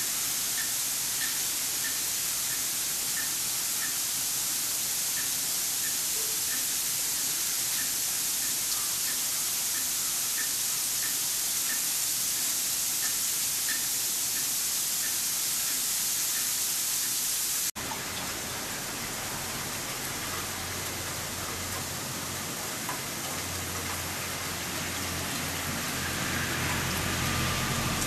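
Steady hiss of falling sleet and wet snow, with faint, fairly regular light ticking. About two-thirds of the way through it breaks off sharply, then carries on with a low steady hum beneath it.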